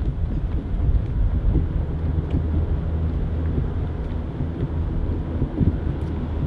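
Steady low rumble of wind buffeting the microphone, with no voices.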